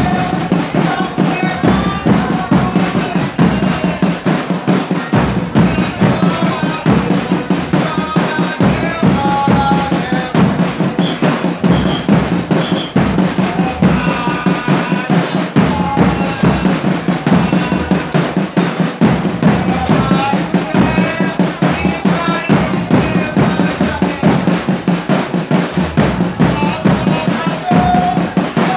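A Folia de Reis band playing: dense, steady drumming on snare-type caixa drums, with a melody carried above the drums.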